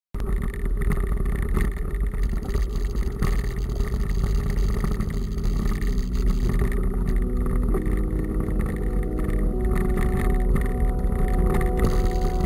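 Wind rumble and riding noise on the microphone of a camera mounted on a mountain bike moving along a dirt track. Steady held music notes come in about halfway through.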